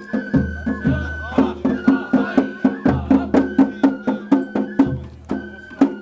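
Japanese festival hayashi music: a high flute holding long notes that step in pitch every second or so, over quick, sharp percussion strikes.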